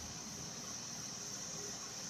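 Steady high-pitched background drone with faint hiss and no distinct tool knocks or clicks.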